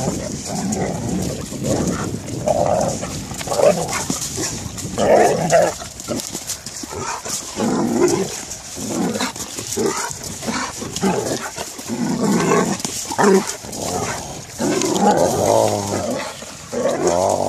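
Two dogs play-fighting, vocalising at each other in short, irregular bursts.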